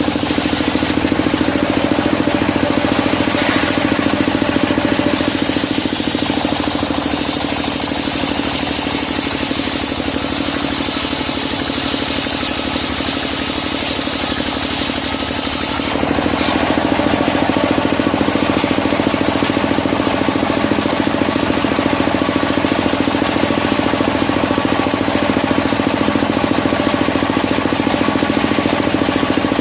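Engine-driven circular sawmill running steadily while sawing medang kuning timber, its tone shifting about five seconds in and again at about sixteen seconds.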